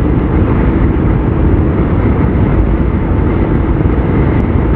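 Steady rumble of wind buffeting the microphone, with engine and road noise from a motorcycle moving at highway speed.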